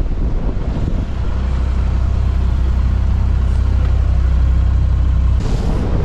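A motor running with a steady low drone that stops abruptly near the end, followed by a short rushing noise.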